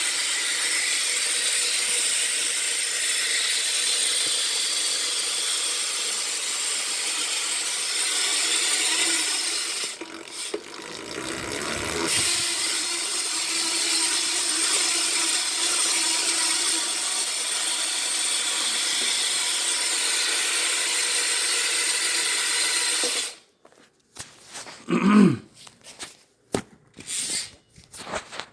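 Tall Order Drone BMX rear hub buzzing loudly as the rear wheel freewheels: a steady, high ratcheting buzz that dips briefly about ten seconds in, comes back, then cuts off suddenly near the end as the wheel stops. A few light clicks and knocks follow.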